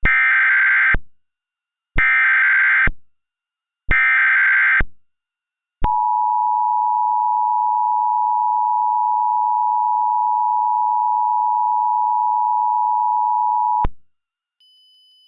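Emergency Alert System tones. Three one-second bursts of SAME header data come about a second apart, followed by the EAS two-tone attention signal held steady for about eight seconds, which cuts off sharply. The sequence signals that an emergency alert message is about to be read.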